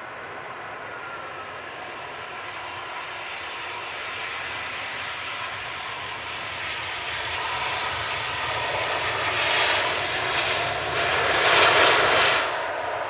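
Twin jet engines of an Airbus A320-family airliner rolling along the runway, growing steadily louder as it approaches. The sound is loudest near the end as the aircraft goes past.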